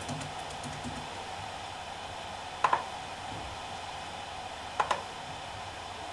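Seagate BarraCuda ST2000LM015 2.5-inch 2 TB SMR hard drive spinning with a steady whir. Twice, about two seconds apart, its heads seek with a short, sharp double click.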